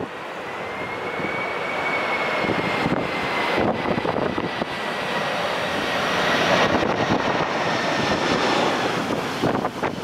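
Boeing 747-400's four Pratt & Whitney PW4056 turbofan engines on final approach, passing close overhead at landing power. The jet roar grows louder over the first six seconds or so, with a high engine whine that slides slowly lower as the aircraft goes by.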